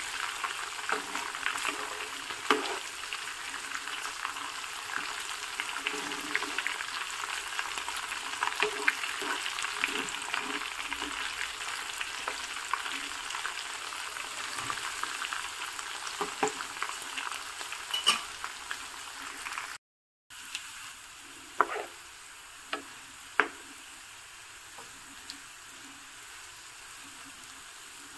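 Garlic cloves, ajwain, fenugreek seeds and cloves frying in oil over full heat: a steady sizzle with clicks and scrapes of a spatula stirring in the pan. The sound cuts out for a moment about two-thirds through, and the sizzle is quieter afterwards.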